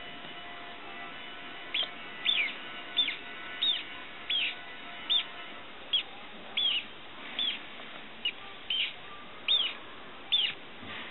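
A live mouse squeaking over and over: about thirteen short, high squeaks a little under a second apart, starting about two seconds in. These are the distress squeaks of a feeder mouse offered to a corn snake.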